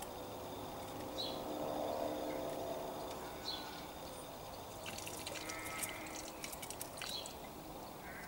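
Short, high bird call notes repeated every two to three seconds over a low steady hum, with a run of light clicks and rustling about five seconds in.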